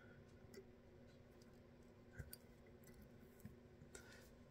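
Near silence: room tone with a faint steady hum and a few faint, short clicks.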